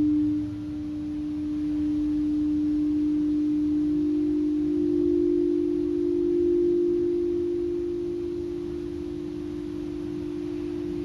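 Singing bowl sounding a long, sustained low tone with no words over it. About four seconds in, a second, slightly higher tone joins, and the sound swells and wavers slowly.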